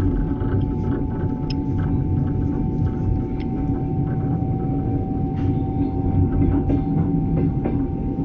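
Passenger train rolling along the track: a steady low rumble of wheels on rails with scattered clicks and a constant faint whine.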